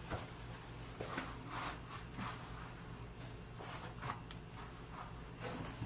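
Quiet room tone with a steady low hum and a few faint, soft rustles scattered through it.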